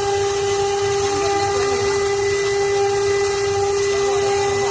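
CNC machine spindle running at a steady high speed: a constant high-pitched whine with a hiss underneath.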